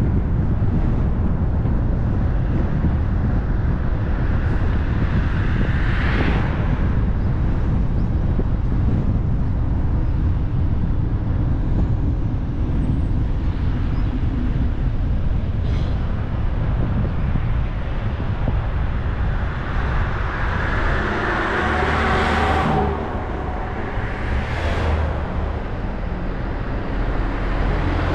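Steady road and wind noise from a car driving along, with other vehicles swooshing past several times; the loudest pass comes about twenty-two seconds in.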